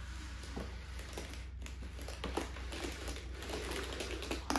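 Rustling of a cordless cellular shade's pleated fabric, with a few light clicks from its headrail and bracket, as the shade is handled and drawn down.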